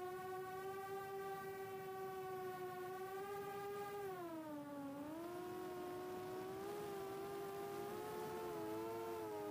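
Four-inch FPV quadcopter's HGLRC 1303.5 4500kv brushless motors and props whining steadily in flight. The pitch dips about four seconds in as the throttle eases, climbs back, and near the end splits into two close tones as the motors run at slightly different speeds.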